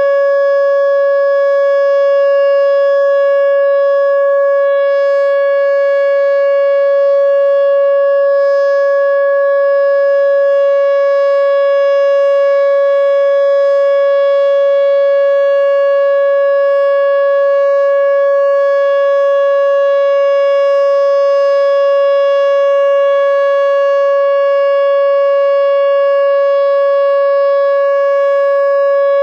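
Whelen Omni-Alert OA4 outdoor warning siren sounding its Full Alert signal: one loud, steady tone held at a single pitch, neither rising nor falling.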